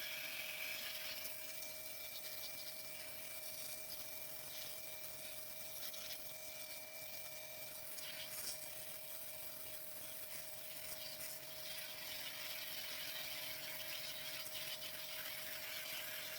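Pressure washer running steadily: a spray hiss over a constant motor whine, as the drum is washed.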